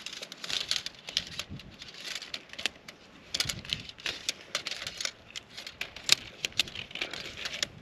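Irregular rustling, crinkling and clicking of tent fabric and gear being handled while a Hilleberg Jannu tent is pitched.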